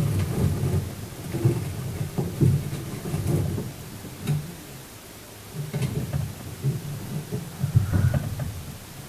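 Handling noise on a phone's microphone: irregular low rumbling with a few soft knocks.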